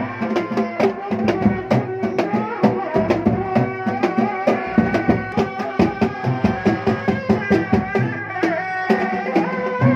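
Reak music: drums beaten in a fast, steady rhythm of about three strokes a second under a continuous wavering melody.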